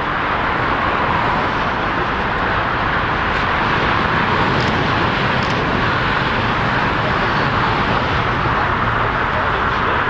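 A steady roar from the GE90-115B turbofan engines of a Boeing 777-300ER climbing out at takeoff thrust.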